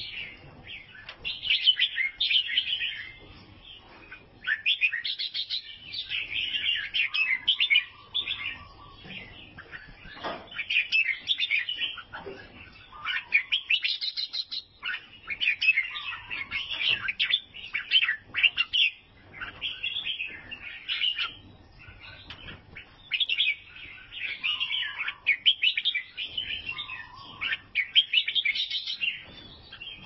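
Caged albino bulbul singing: bursts of quick, chirpy warbling phrases a second or two long, repeated with short pauses throughout.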